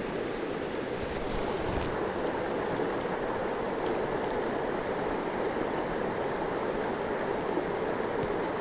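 River water rushing steadily past, an even, unbroken noise.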